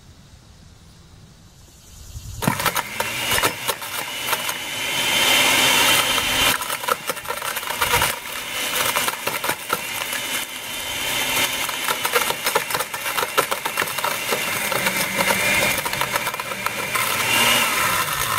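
Oster glass-jar blender motor starting about two seconds in and running at high speed while it smashes a portable phone charger, with broken pieces of the charger clattering rapidly against the jar.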